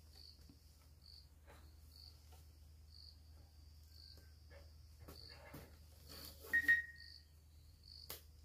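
An insect chirping steadily, about one short high chirp a second, with scattered light knocks and rustles and one short sharp squeak about six and a half seconds in.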